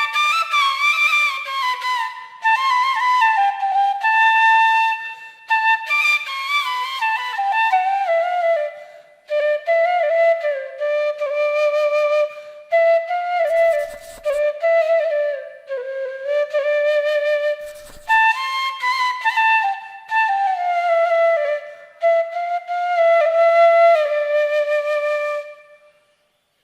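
Background music: a single wind-instrument melody played in slow phrases that mostly fall in pitch, fading out near the end.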